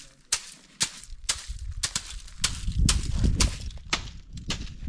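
Wooden stick beating a pile of dried bean pods on a tarp to thresh out the beans: sharp cracks about twice a second, with a low rumble in the middle.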